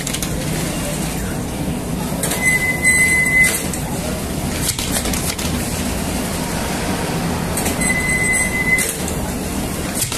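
Flatbread bakery machinery, the revolving oven hearth and dough sheeter, running with a steady rumble. A high squeal lasting about a second comes twice, some five seconds apart.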